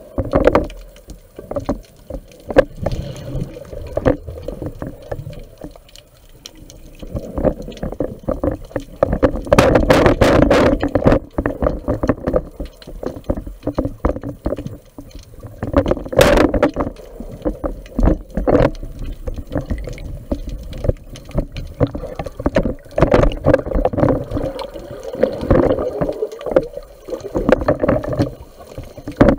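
Underwater sound picked up by a spearfisher's camera: water rushing and rumbling past the housing, with many short knocks and clicks as the diver swims with the speargun. It is louder in stretches, with a sharp loud knock about two-thirds of the way through.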